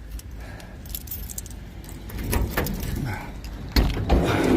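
Keys jangling and clicking as a van is unlocked, then two loud clunks near the end, from the van's door.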